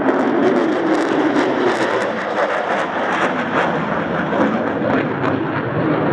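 Aircraft engine noise from a display aircraft in flight: a steady, loud rushing roar with a rough crackle on top.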